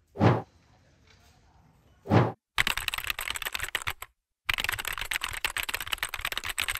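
Two quick whoosh transition effects, then a computer-keyboard typing sound effect: rapid key clicks in two runs with a short break between them.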